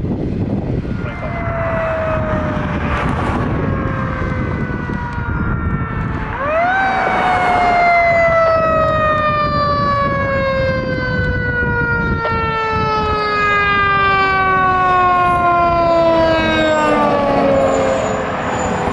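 Fire truck siren: a falling tone, then about six seconds in it winds up quickly and slowly dies away for the rest, over the low rumble of the truck's engine.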